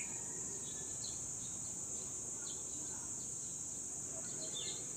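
Steady high-pitched drone of insects, with scattered short bird chirps over low background noise.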